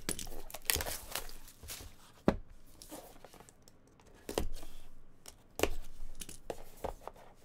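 Plastic shrink-wrap being torn and crinkled off a cardboard trading-card box, then a box cutter slitting the tape on the box's sides, with several sharp cracks and clicks among the rustling.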